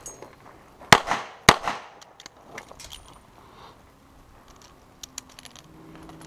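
Two handgun shots about half a second apart, very loud and sharp, followed by scattered faint clicks and rattles.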